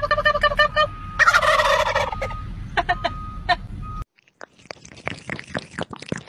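Several wild turkeys gobbling, a fast rattling call repeated a few times, loudest about a second in. About four seconds in it cuts suddenly to quieter wet lapping from a kitten drinking water from a glass.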